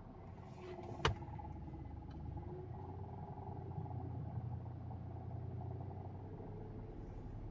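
Car engine held at about 1050 rpm, running steadily with a low drone, the abnormal noise that comes in at that speed. The mechanic traces it to a compressed gearbox mounting passing vibration into the body. A single sharp click about a second in.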